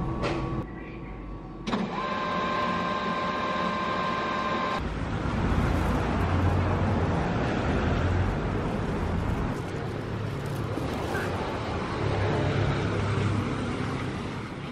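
City street traffic noise: a steady rumble of passing vehicles heard while walking on the pavement. About two seconds in come a few seconds of steady high electronic tones, which cut off abruptly.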